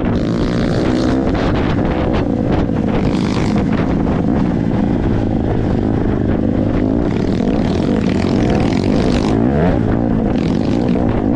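Dirt bike engine running while being ridden, its pitch rising and falling with the throttle.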